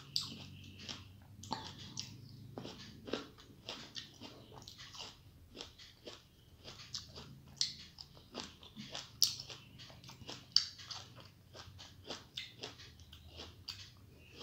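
A person chewing halved green grapes: a steady, irregular run of short wet mouth clicks and smacks, two to four a second, with a few louder ones past the middle.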